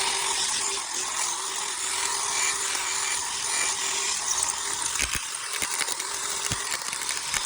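Electric drill running steadily, a masonry bit boring out a hole in soft cinder block.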